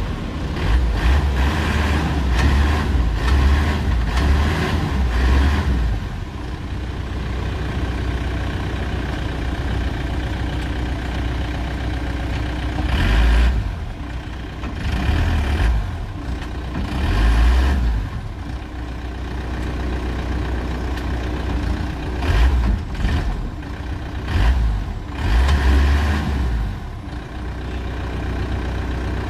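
Force Traveller van's diesel engine running after a cold start, revved up in repeated surges between steadier stretches. The owner judges it a superb engine in excellent condition.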